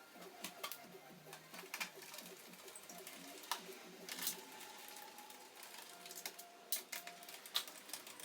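Faint, irregular clicks and taps of a screwdriver, screws and plastic panels being handled as a laptop is taken apart.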